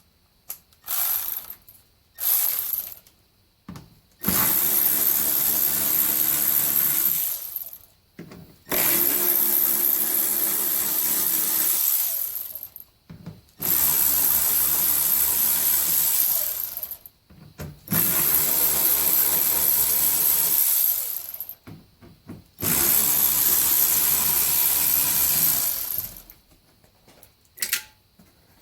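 Handheld power drill/driver running in a few short blips, then in five long runs of about three to four seconds each with short pauses between, backing out 7 mm bolts.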